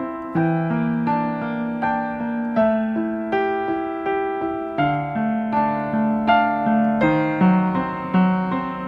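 Calm background music: a piano or electric piano playing a gentle melody of single notes over held bass notes, a new note struck about every half second.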